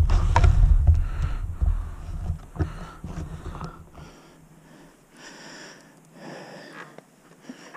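Mountain bike rolling over a narrow wooden plank bridge: a low rumble and clatter of tyres on the slats with wind buffeting the camera microphone. About four seconds in the rumble drops away abruptly, leaving quieter scattered noises.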